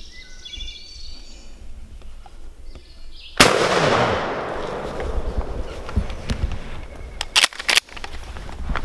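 Songbirds chirping, then a single shotgun blast about three and a half seconds in that echoes and fades over a couple of seconds: the shot at a wild turkey gobbler. A few sharp clicks and knocks follow near the end.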